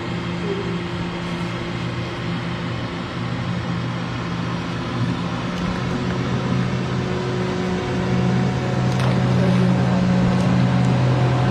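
A boat motor running with a steady hum, getting louder about eight seconds in.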